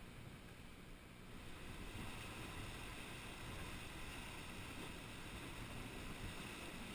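Surf washing in over coastal rocks: a steady rushing noise that grows a little louder about two seconds in.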